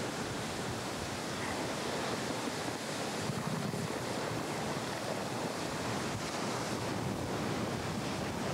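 Ocean surf washing ashore, a steady rushing noise without distinct crashes.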